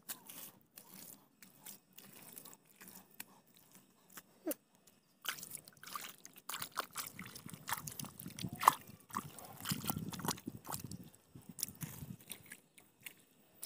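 Bare hands digging and scooping in wet mud, with irregular squelches, slaps and rustling grass. Busier from about five seconds in, with one sharp louder smack in the middle.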